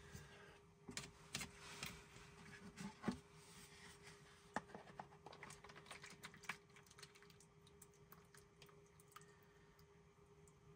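Near silence with faint, scattered small clicks and taps from handling a small metal cooking pot and a paper bowl while soup is poured from the pot into the bowl.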